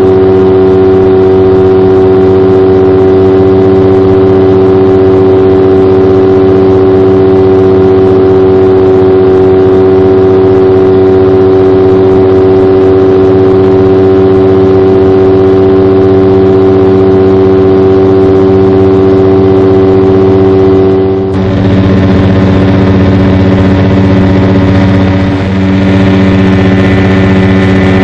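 Engine of a Rans Coyote ultralight aircraft running steadily in flight, heard loud from on board. About three-quarters of the way through there is a brief dip and the engine note shifts slightly.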